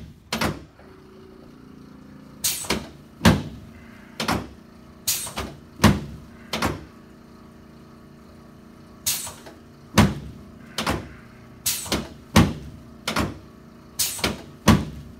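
A chiropractic treatment table knocking and clunking under a series of quick adjusting thrusts to the lower back, at the SI joints and lumbar spine. The knocks come in uneven clusters, about eighteen in all, with a short pause about halfway through.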